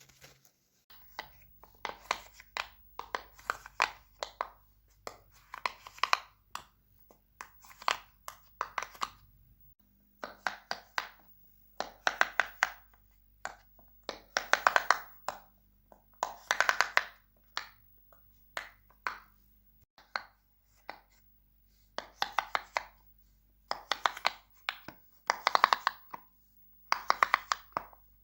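A fidget toy worked by hand: short bursts of crackly clicking, one about every one to two seconds.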